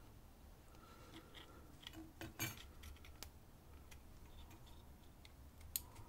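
A few faint metallic clicks and scrapes as the plug of a Euro cylinder lock is drawn out of its housing with a hook pick, the sharpest click about two and a half seconds in.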